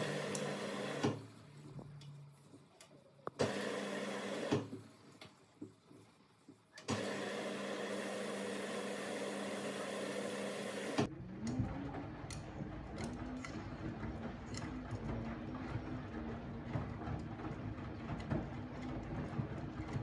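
Candy front-loading washing machine in its wash cycle: the drum motor hums in bursts with short pauses. About eleven seconds in, it settles into a continuous run with a rising motor tone and a low rumble of wet laundry tumbling, with many light knocks.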